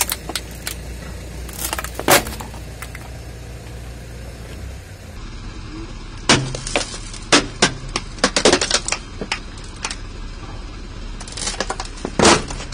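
Plastic toy race car cracking and snapping under a car tyre: sharp cracks in several clusters, the loudest near the end, over the low steady hum of the car's engine.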